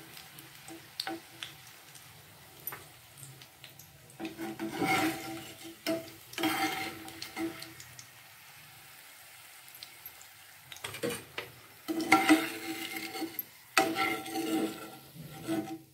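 Raw banana slices sizzling in shallow oil in a nonstick frying pan. A metal slotted spoon scrapes and clatters against the pan in four bursts as the fried slices are lifted out.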